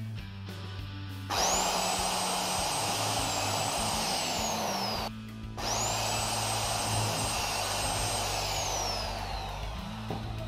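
Corded electric drill run twice, each run about four seconds, boring holes through a rubber car mat: a high motor whine climbs quickly as the trigger is pulled, holds steady, then falls away as the motor winds down. Background music plays underneath.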